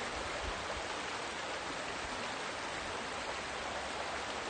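Creek water flowing over rocks, a steady rush.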